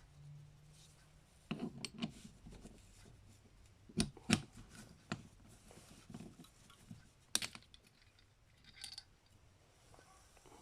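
Scattered light clicks and taps of small metal carburetor parts being handled while the plunger cap of a Mikuni VM carburetor is taken off, with the sharpest clicks about four seconds in and again past seven seconds.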